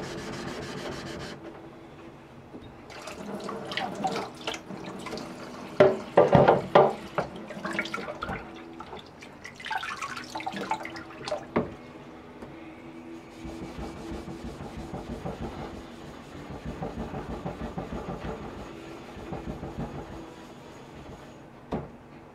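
Steel plane blade rubbing on a wet waterstone, then water splashing and sharp clatter of stones being rinsed and handled, then steady back-and-forth rubbing on a wet 8000-grit King finishing stone, about three or four strokes a second.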